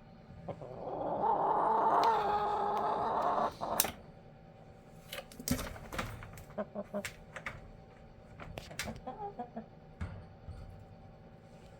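Pet chickens in a dog crate: one gives a loud, drawn-out call lasting about three seconds, then a run of sharp taps and clicks sounds from the crate, with a few soft clucks.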